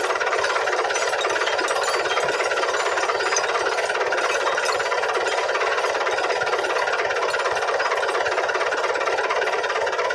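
A 640 tractor's diesel engine running steadily at idle with a fast, even clatter.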